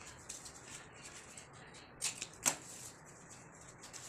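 Cardboard strips being handled and slid against a cardboard circle: light rustling and scraping, with a couple of sharp taps about two seconds in.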